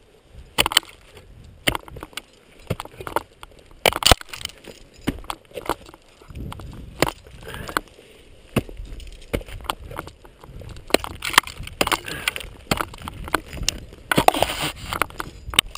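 Ice axe picks and crampon front points striking and kicking into the frozen waterfall's ice, a run of irregular sharp knocks and crunches with ice chipping away, heaviest about four seconds in and near the end.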